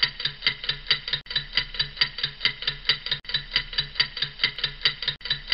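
Ticking-clock sound effect laid over the opening titles, about four ticks a second, with a brief break roughly every two seconds where the loop restarts.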